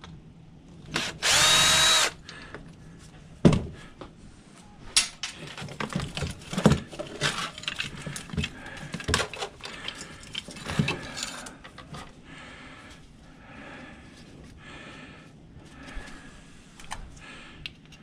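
Cordless drill-driver runs for about a second, backing a screw out of a table fan motor. After that come a string of sharp clicks and knocks as the small metal parts are handled and pulled apart, then quieter rubbing.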